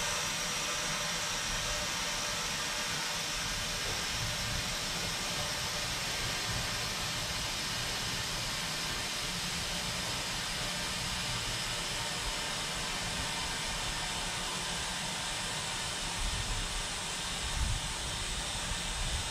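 Compressed CO2 from a Power Tank bottle rushing through the hose and Monster Chuck into an off-road tire through a Monster Valve: a steady hiss as the tire airs up fast. A few low bumps come near the end.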